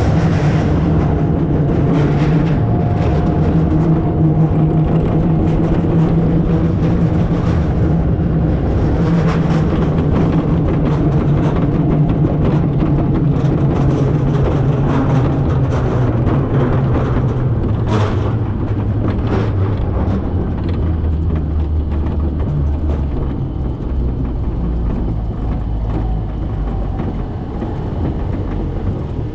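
Roller coaster train running along its track, heard from on board: a loud, steady low rumble that eases a little over the last several seconds.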